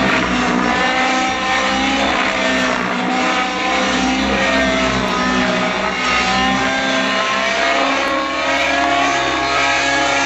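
Miniature Aircraft Stratus RC helicopter in 3D flight: its smoking glow engine and rotor blades give a steady, loud whine whose pitch keeps sliding up and down as the helicopter manoeuvres.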